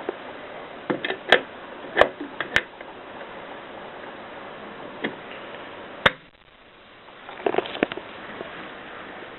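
Mercedes Superba manual typewriter giving scattered sharp mechanical clacks and clicks, not steady typing: a few close together about a second in, single ones around two and two and a half seconds in, one near the middle, a sharp one a little after, and a quick cluster near the end. A steady hiss lies underneath.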